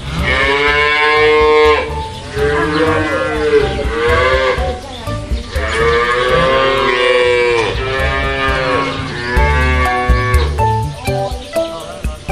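Cattle mooing: a series of about six long, drawn-out moos, one after another with short gaps.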